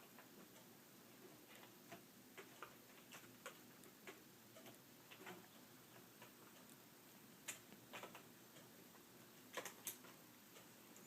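Faint, irregular small clicks and ticks from handwork on a laptop's screen assembly as its screws go back in, with a few sharper clicks near the end.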